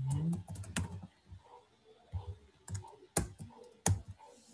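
Computer keyboard keys being pressed: a quick run of keystrokes near the start, then a few separate, sharper clacks about three and four seconds in.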